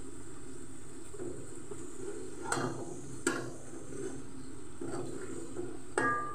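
A metal spoon stirs and scrapes onion-tomato masala frying in oil in an aluminium pot, over a steady low sizzle. The spoon knocks sharply against the pot three times, about two and a half, three and a quarter and six seconds in.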